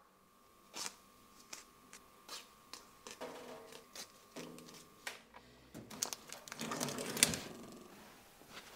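A kitchen knife working at the plastic film sealing a tofu tub over a stainless-steel sink: a series of sharp clicks as the blade taps and pierces the film, then, about six seconds in, a louder crinkling rustle of the film being handled.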